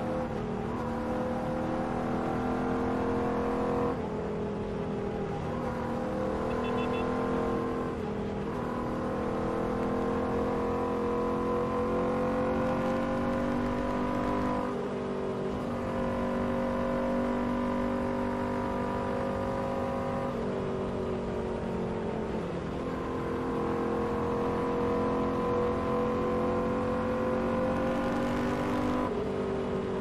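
Royal Enfield Continental GT motorcycle engine running under way at cruising speed, heard from the rider's seat. Its pitch slowly climbs and then drops back several times as the throttle and gears change.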